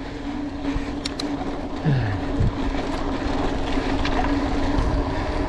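Wind and rolling noise on a GoPro's microphone during a mountain-bike ride: a steady rush with a constant hum under it and a brief falling tone about two seconds in. It cuts off suddenly near the end.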